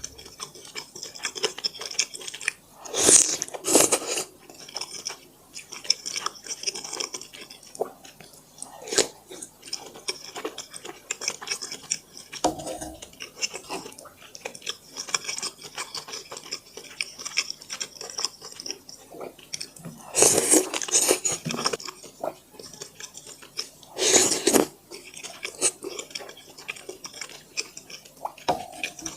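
Close-up chewing and eating of dumplings: wet, crackly mouth sounds and bites. Utensils clink against dishes now and then, with a few louder bursts about three seconds in and twice in the last third.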